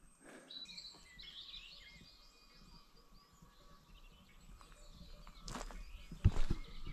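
Small birds chirping and singing in woodland, then a few footsteps on the forest floor near the end.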